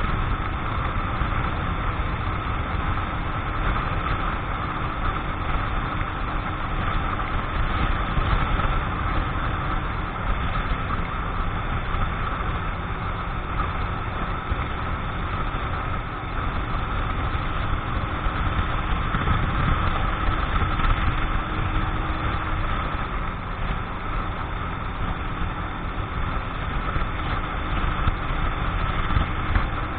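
Keeway X-Light 125's single-cylinder four-stroke engine running steadily while the motorcycle cruises at about 65 km/h on a new bike being run in. Heavy wind rumble on the microphone lies under it.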